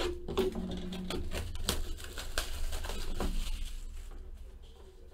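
Cardboard trading-card boxes being handled and set down on a table: an irregular string of light knocks, taps and scrapes.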